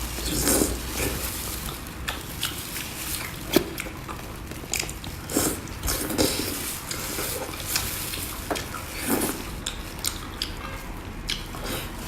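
A person eating oysters close to the microphone: irregular wet chewing and biting sounds with small clicks.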